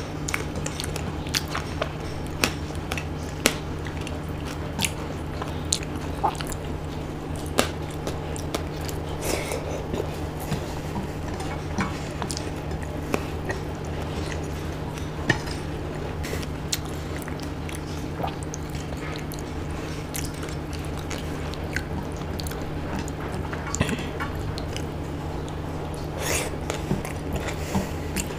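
Close-miked chewing and mouth sounds of a person eating khichdi by hand: frequent sharp wet smacks and clicks over a steady low hum.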